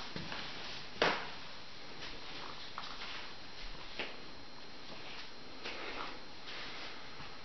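Steady room hiss with a sharp click about a second in and a second, smaller click about four seconds in, with faint rustling around six seconds.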